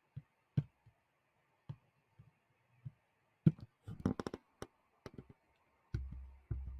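Computer keyboard keystrokes clicking irregularly, single keys at first, then a quick run of several keys about three and a half seconds in. Low dull thumps follow near the end.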